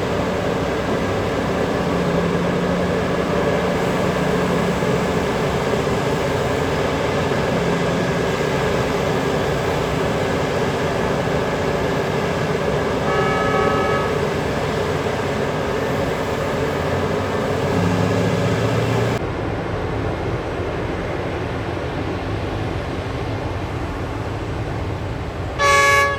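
Heavy mining machinery running steadily: the diesel engines of a large excavator and haul truck at work. A faint short horn toot about halfway through, and a loud short horn blast near the end.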